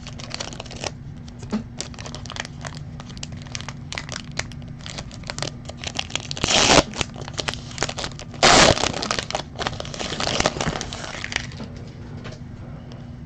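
Foil wrapper of a Panini Prizm baseball card pack crinkling and crackling as hands pull it open and slide the cards out. There are two louder crinkling rustles about halfway through, and the sound dies down near the end.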